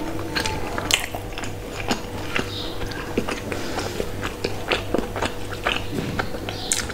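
Close-miked chewing and mouth sounds of a person eating soft bread, with many short clicks from the mouth.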